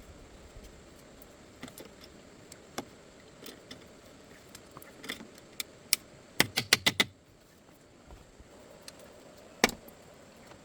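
Scattered sharp clicks and knocks, with a quick run of about five knocks a little past the middle and one more near the end.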